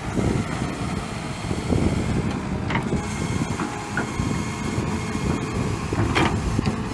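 Tvex EK-14 wheeled excavator's diesel engine working under load as the bucket digs into clay soil, with a couple of sharp knocks from the bucket and linkage.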